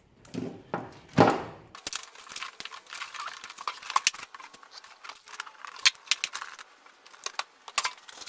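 A car wiring loom being handled and its cable ties snipped: a short loud rasp about a second in, then a busy run of small clicks, snips and crackles.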